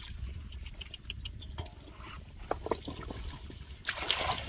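Hands groping in shallow muddy water, giving small splashes, drips and squelching clicks, with a louder splash about four seconds in.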